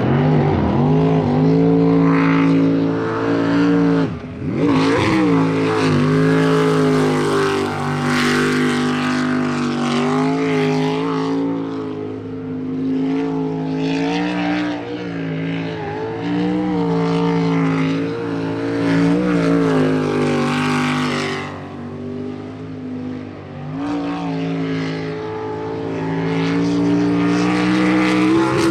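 Jet sprint boat engine running hard through a timed course run. It revs up at the start, drops sharply and picks up again about four seconds in, then rises and falls in pitch with the throttle through the turns.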